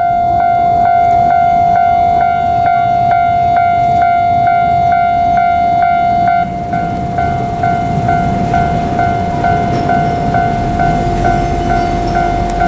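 Japanese railway level-crossing alarm ringing its repeated electronic bell about twice a second, with the low rumble of an approaching train growing near the end.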